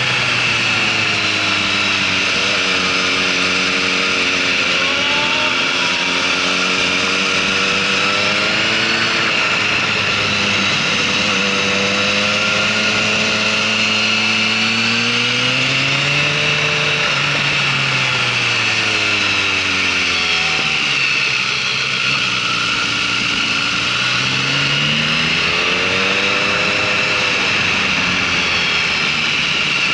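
Motorcycle engine heard on board while riding a circuit, its revs rising and falling several times as it speeds up out of bends and eases off into them, with a steady high whine behind it.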